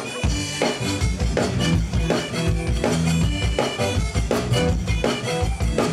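Live band music: a drum kit keeps a steady beat under bass and a piano accordion.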